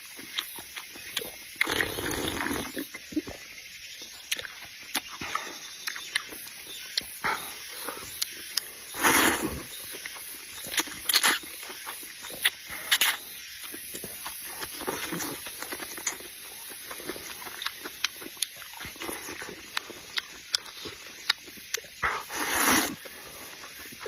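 Close-up eating of pig ear and rice noodles: chewing with many short sharp clicks, and three longer slurps about 2, 9 and 23 seconds in.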